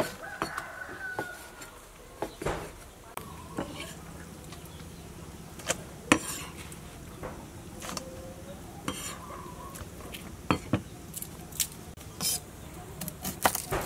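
Knife cutting pork on a wooden chopping board: irregular knocks of the blade on the board, with a few louder chops.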